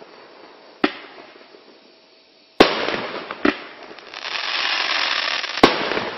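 Cube Fireworks 'Voodoo' firework cake firing shot after shot: four sharp bangs at uneven intervals, one lighter than the rest. A steady hiss lasts about two seconds before the last bang.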